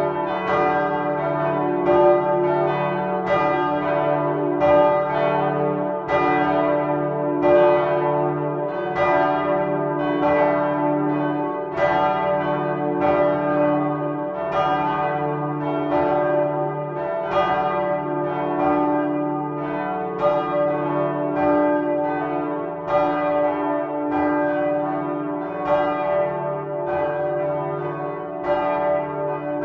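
Swinging bronze church bells cast by Michiels of Tournai in 1957, pealing together. Their clapper strikes come about one and a half times a second in an uneven, overlapping rhythm, and each strike rings on under the next.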